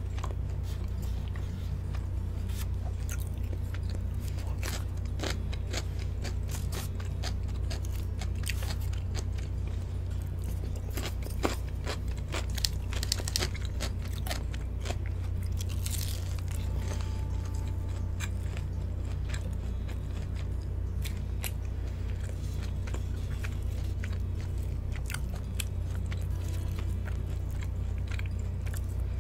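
Close-miked crunching and chewing of Korean fried chicken with crispy, cheese-powdered skin, many small crackles with the loudest bites a little after twelve seconds in. A steady low hum runs underneath.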